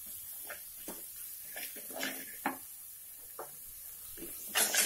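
Wooden spatula scraping and knocking against a metal kadai while onions and ginger-garlic paste are stir-fried: irregular strokes, with a sharper knock about two and a half seconds in and a short cluster of louder scrapes near the end.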